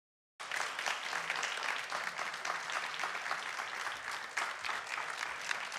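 Studio audience applauding, a dense steady clapping that starts suddenly about half a second in.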